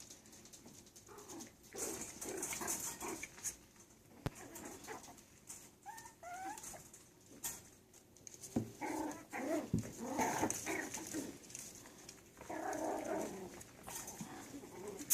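Yorkshire Terrier puppies playing, giving small yips and whines in irregular bouts, mixed with scuffling and a few sharp clicks.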